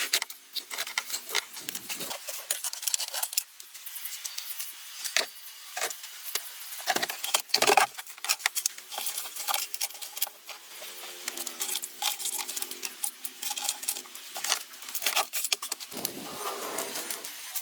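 Hand tools at work on a vehicle: irregular clinks, knocks and scraping.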